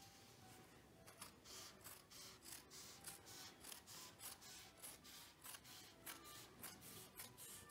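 Faint, steady snipping of scissors cutting through cotton fabric, about three cuts a second, starting about a second in.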